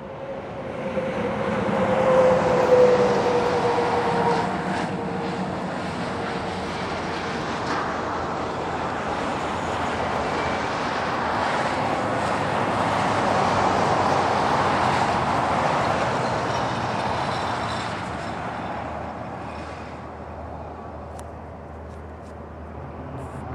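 Road traffic passing: a vehicle goes by about two seconds in with its engine note dropping in pitch, then a second longer swell of passing traffic in the middle before the noise dies down.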